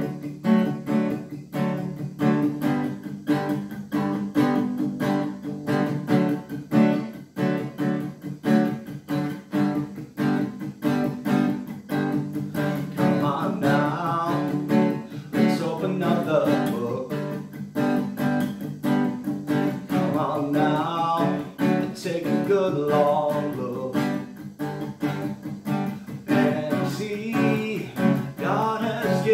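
Acoustic guitar strummed in a steady rhythm as a worship-song intro; about halfway through, a man starts singing over the strumming.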